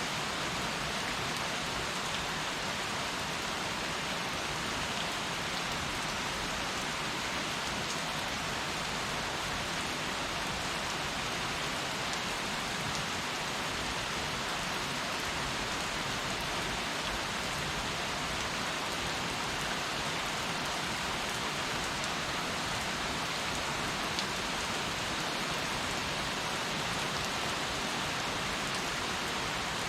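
Heavy rain falling steadily on a hard surface, a dense even hiss with no letup.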